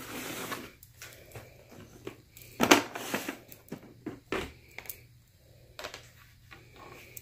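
Clicks and clacks of a clear plastic compartment storage case being handled, its lid unlatched and lifted off, with a sharp plastic snap about two and a half seconds in and a few lighter knocks after it.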